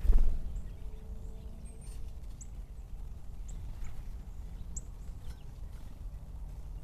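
Cedar waxwings giving brief, very high, thin calls several times, over a steady low rumble. A low thump sounds right at the start.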